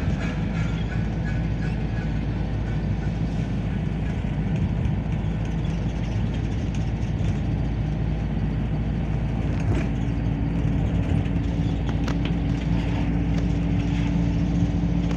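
A motor vehicle driving along, heard from inside: the engine and the road noise drone steadily. A low, steady engine hum stands out more clearly in the second half.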